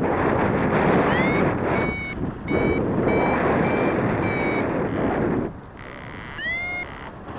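Paraglider variometer beeping over heavy wind noise on the microphone: a short rising chirp, then a run of even, high beeps about one and a half a second, then another rising chirp near the end. Variometer beeps like these signal that the glider is climbing.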